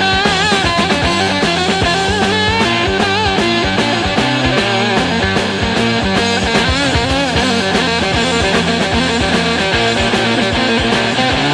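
Instrumental psychedelic rock: an electric guitar plays a wavering lead line with bends and vibrato over bass and a steady drum beat, with no vocals.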